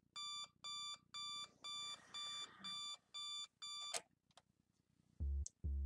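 Sony digital alarm clock beeping, about two beeps a second, until it is hit off with a click about four seconds in. Near the end come two short, low grunts.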